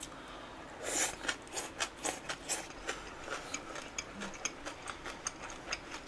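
Close-miked chewing of a mouthful of noodles: a sharper wet smack about a second in, then a run of small, irregular wet clicks, several a second.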